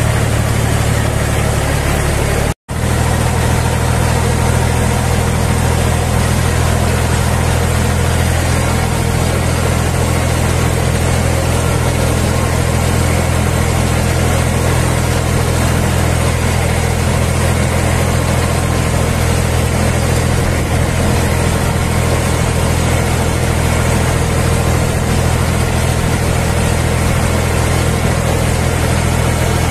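Tractor engine running steadily under load as it pulls a single-furrow plough through grass sod. The sound cuts out for a moment about two and a half seconds in.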